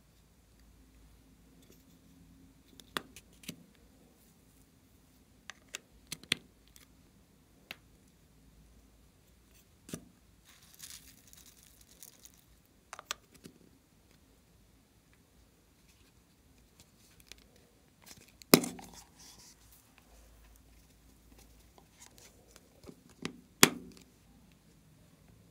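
Scattered clicks and taps of small plastic topping containers being handled, opened and set down by a glass dish, with a brief hissing patter of glitter sprinkled onto slime. The loudest sharp clicks come a little past halfway and again near the end.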